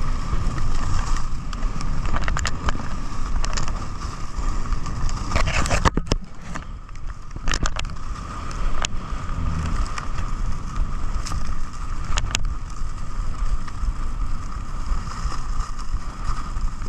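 Skis running over snow with wind buffeting the microphone: a steady rushing noise with a constant hiss-like band, broken by several sharp knocks and a brief lull about six seconds in.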